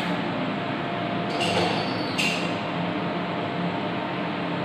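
Steady mechanical hum and hiss, like a running fan, with two brief high rustles about a second and a half and two seconds in.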